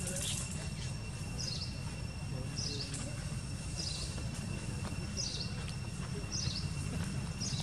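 Outdoor ambience: a bird repeats a short, high, falling call about once a second over a steady high insect drone and a low rumble.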